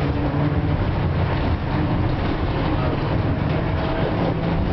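FVV CSM-4 articulated tram running, heard from inside the passenger saloon: a steady rumble of wheels on rails under a low motor hum. The hum fades about a second in and comes back near the end.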